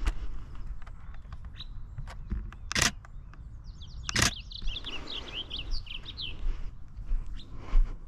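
A songbird sings a quick run of short, high chirping notes lasting about two seconds, a little past the middle. Just before it come two sharp clicks about a second and a half apart, the loudest sounds here.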